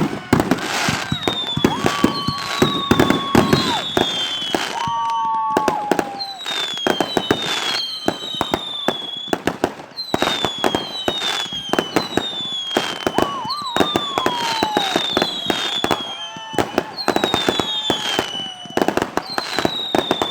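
Consumer fireworks going off: a dense, continuous string of sharp bangs and crackles, with repeated high whistles that fall in pitch about once a second, and a few lower whistles, one held steady for over a second and others that sink at the end.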